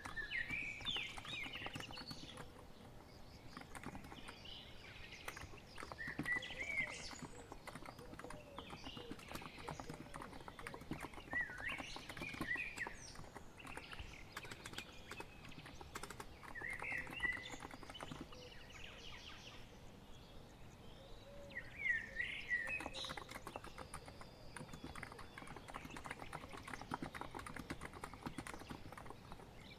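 Steady typing on a COX Empress electro-capacitive keyboard, a dense run of soft key clicks. A bird sings a short phrase about every five seconds, five times.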